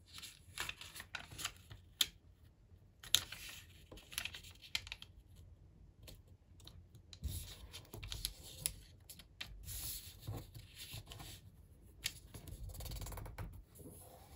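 A sheet of origami paper being folded by hand: crisp crackles and small taps as it is lifted and turned over, then scratchy rubbing as fingers run along the creases.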